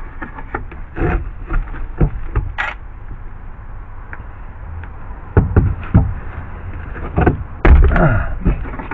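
Knocks and clunks of tools and parts being handled in a boat's gutted hull, with heavier thumps about five and a half seconds in and the loudest near the end, as a cordless screw gun is set down.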